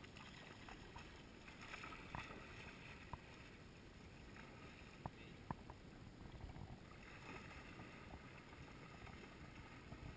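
Faint lapping of small ripples at the shoreline, swelling a little around two seconds in and again near the end, with a few faint ticks.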